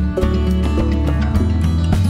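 Background music with a steady beat and a prominent bass line.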